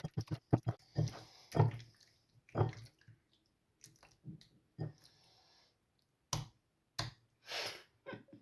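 Raw chicken pieces being mixed by hand in a soy sauce and teriyaki marinade in a bowl: quick wet clicks at first, then separate squelches about a second apart.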